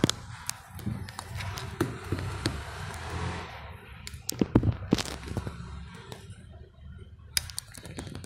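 Handling noise from a camera being moved and set in place on a desk: irregular clicks and knocks with rubbing and rustling, a few sharper knocks in the second half.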